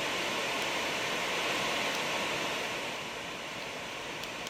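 Lectrofan Micro sound machine playing its ocean setting: a steady rushing noise like surf that swells a little and then eases. It cuts off abruptly at the very end as the machine switches to the next sound.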